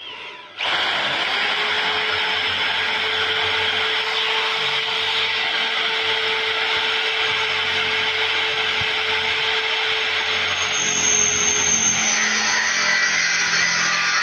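Corded electric drill running continuously, boring a hole down into a galvanized steel tube. It starts about half a second in and runs steadily, and its tone shifts about eleven seconds in.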